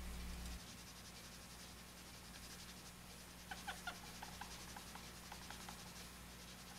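Faint rubbing of a cotton swab buffing Flitz polish into a small clear plastic diecast-car windshield, with a run of short squeaks about halfway through, over a low steady hum.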